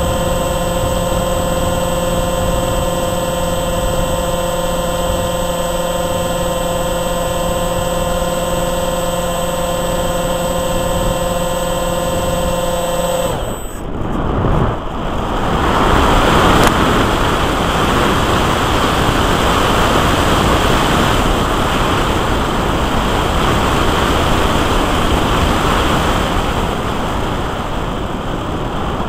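Onboard audio from a radio-controlled F-22 Raptor profile model: the motor and propeller whine steadily at constant throttle, then cut off suddenly about halfway through. After that, loud wind rush over the airframe and microphone as the model dives and glides in to land.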